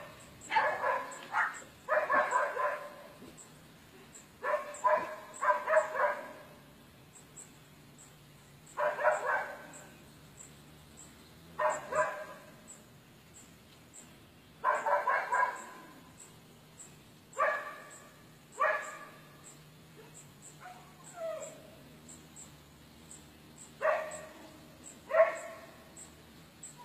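Short barking calls from an animal, singly or in runs of two or three every few seconds. A faint, high, regular ticking sounds about two or three times a second underneath.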